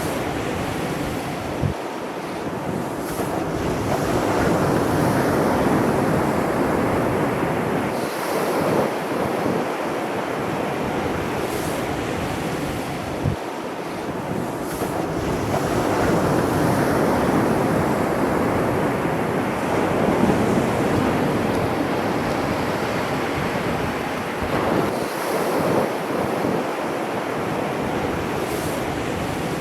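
Sea surf breaking on the shore, a steady rush of water that swells and fades about every ten seconds, with wind buffeting the microphone.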